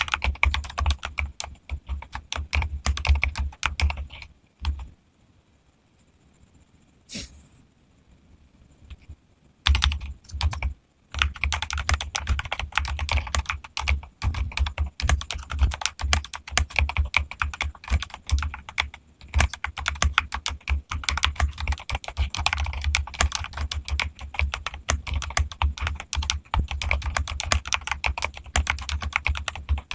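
Fast typing on a modded Keychron mechanical keyboard: a dense run of key clacks. About four seconds in, the typing stops for roughly five seconds, with one lone click in the pause, then carries on steadily.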